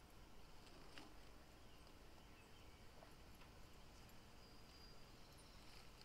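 Near silence: a few faint clicks and rustles of hands digging potatoes out of garden soil.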